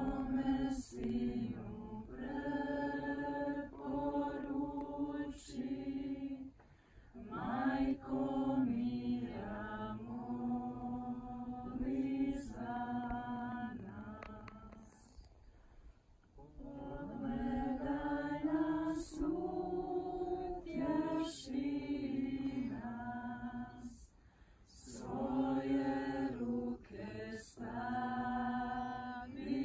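A group of voices singing a slow devotional hymn a cappella, in long held phrases with three short breaks between them.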